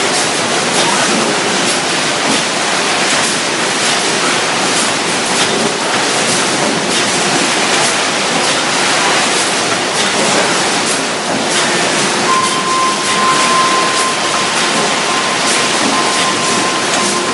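Steady, loud running noise of a robotic bag-palletizing line with its conveyors, peppered with frequent small clacks. Past the middle a steady high whine comes in and holds to near the end.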